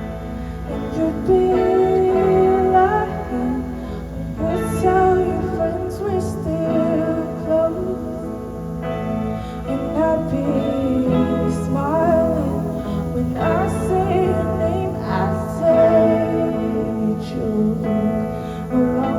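Live rock band playing a passage without lyrics: electric guitar and bass over drums, with a gliding lead melody and occasional cymbal crashes.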